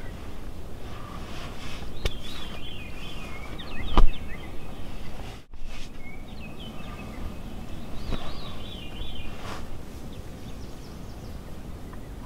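Songbirds singing short warbling phrases, several times, over a low rumble of wind, with one sharp click about four seconds in.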